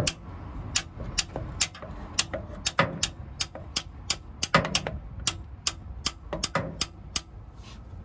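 Light metallic clicks, about two or three a second, with a few heavier knocks in the middle, from a ratchet and socket on an Isuzu NPR's exhaust oxygen sensor as it is worked loose. The clicks stop shortly before the end.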